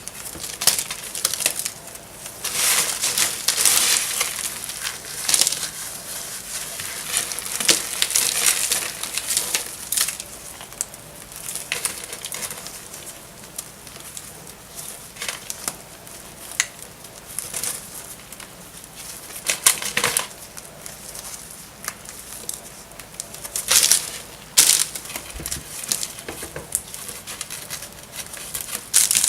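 A blade cutting through very dry soap, crunching and crackling in irregular bursts. The louder crunches come a few seconds in, around twenty seconds in, and near the end.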